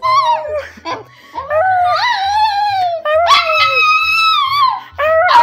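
A small terrier howling: several long, wavering howls that slide up and down in pitch, the longest lasting over a second. Background music plays underneath.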